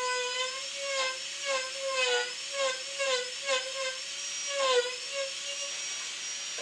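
Marathon micro motor handpiece running at high speed with a steady high whine, its burr cutting detail into a wood carving. The pitch wavers and dips briefly each time the burr bites, with several short scratchy bouts of grinding, the last and loudest near the end.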